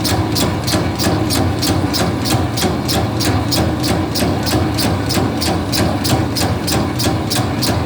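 Electric bakso (meatball) moulding machine running: a steady motor hum with a regular clicking of about four ticks a second as it forms the meatballs.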